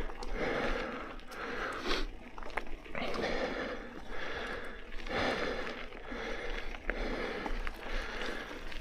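A mountain biker breathing hard while pedalling, one heavy breath every second or two, with scattered clicks and rattles from the bike on the trail.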